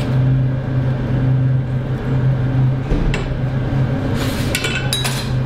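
Metal spatula knocking and clinking against a frying pan and plates while rosti potato cakes are lifted out and set down: one sharp knock about three seconds in, then a quick run of ringing clinks near the end. A steady low hum runs under it all.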